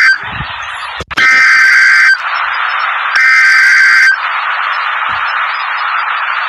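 Emergency Alert System SAME header data bursts on NOAA Weather Radio. Two digital data bursts of about a second each, about a second apart, with radio hiss between and after them.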